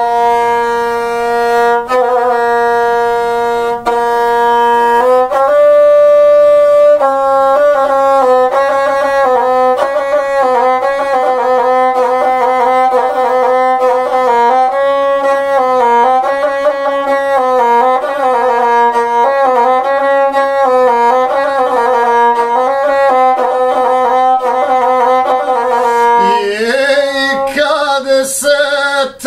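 Gusle, the Serbian single-string bowed folk fiddle, played solo. It holds one long note for the first few seconds, then plays a quick, ornamented melody that wavers around a few close pitches, with a sliding drop in pitch near the end.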